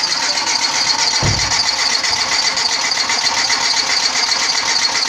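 Car engine turning over on the starter motor without starting, with the spark plug removed and the fuel pump relay pulled for a compression test. It is a steady, fast mechanical cranking sound, with a low thump about a second in.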